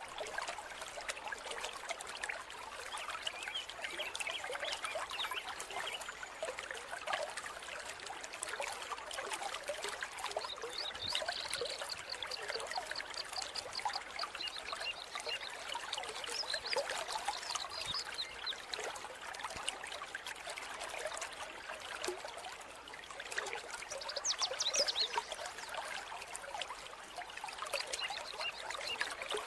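A small mountain stream trickling and splashing steadily over rocks, with many small gurgles and splashes.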